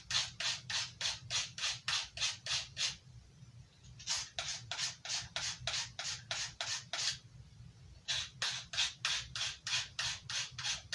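A knife blade stroked rapidly back and forth on a handheld abrasive sharpener, an even scraping rhythm of about four strokes a second, in three runs with brief pauses about three and seven seconds in. The strokes hone the edge on the sharpener's grit.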